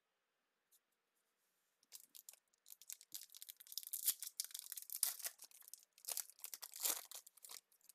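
Foil wrapper of a baseball card pack being torn open and crinkled. After about two seconds of near quiet, crackly tearing and rustling goes on in short bursts until just before the end.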